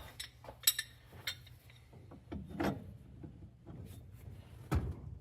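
Adjustable wrench working a hose fitting loose on a gear pump: a few metal clicks, a scraping rub, and a sharper knock near the end.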